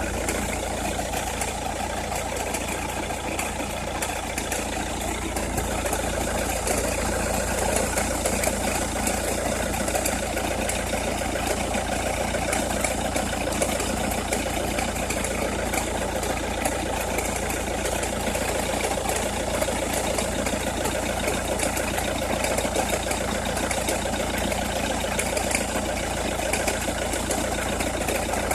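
Opel Meriva engine idling steadily with a fast crackling, ticking noise over it, which the owner hears only with the engine cold or at very low revs.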